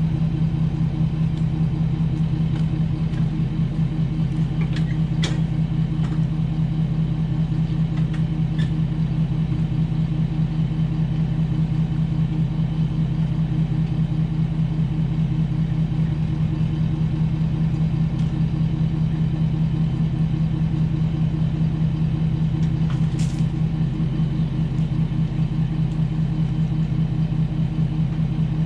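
Ford F-250 pickup driving at a steady speed while towing a loaded dump trailer: an even engine and road drone with a strong low hum and no changes in pace, broken only by a few faint ticks.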